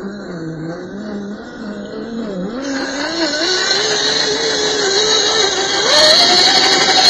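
Electric drive motor and gearbox of an MN86 RC crawler whining as it pushes through deep muddy water. The pitch wavers at first, then climbs steadily and steps up again near the end as the throttle opens. Water churning adds a hiss in the second half, and the whole sound grows louder.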